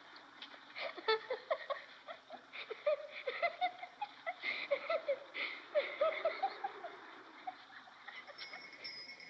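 Birds chirping: many short, quick calls that rise and fall in pitch. A steady, shrill insect trill, like a cricket's, comes in near the end.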